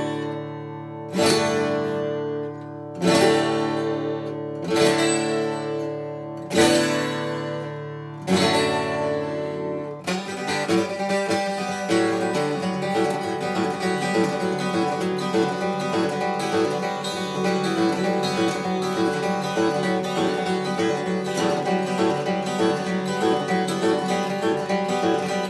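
Acoustic guitar played solo: big chords struck about every two seconds and left to ring out, then about ten seconds in a switch to rapid, continuous picking.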